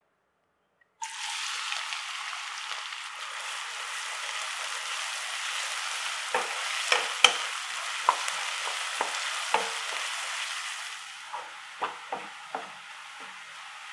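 Chopped red onions hitting hot oil in a pan, setting off a sudden sizzle about a second in. From about six seconds a spatula stirs them, knocking and scraping against the pan, and the sizzle eases toward the end.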